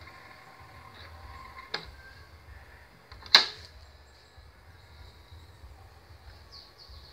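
Two sharp clicks about a second and a half apart, the second much louder, from hands handling the turntable of a CCE stereo music center, over a faint low hum.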